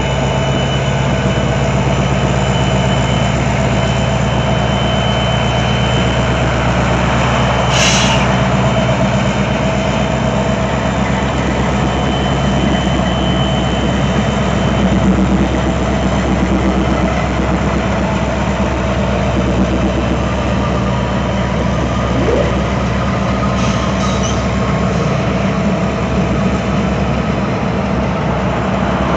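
Norfolk Southern diesel-electric freight locomotives, an EMD SD70ACe and a GE Dash 9, running under power as the train starts to move, with a steady low engine drone. A single sharp knock comes about eight seconds in.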